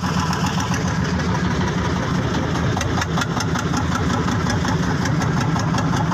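A small wooden fishing boat's engine running steadily while the boat is under way.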